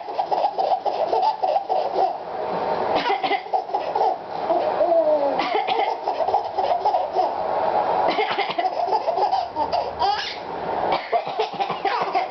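An adult coughing over and over while a baby laughs and squeals in reply, the laughter breaking out again after the coughs.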